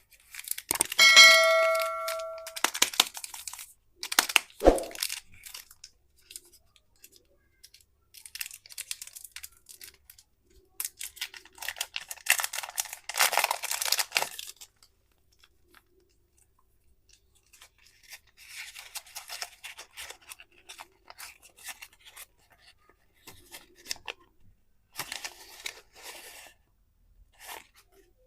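Candy wrappers torn open and crinkled in several separate bursts, with a short ringing ding about a second in.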